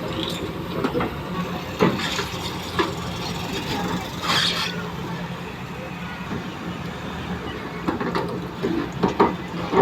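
A heavy machine's engine running steadily, with scattered short knocks and squeals over it, several of them close together near the end.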